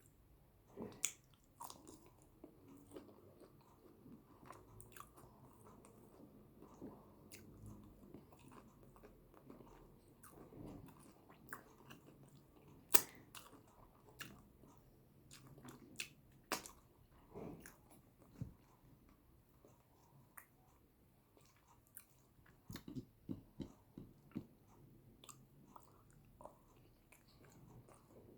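Close-miked chewing and biting of yam with eggplant sauce: soft, wet mouth sounds broken by scattered sharp smacks and clicks, with a quick run of them about three-quarters of the way through.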